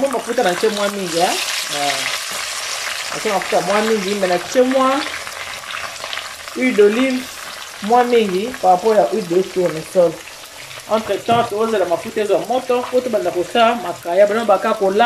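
Salted cod frying in hot oil, a steady sizzle, with a voice over it in several stretches.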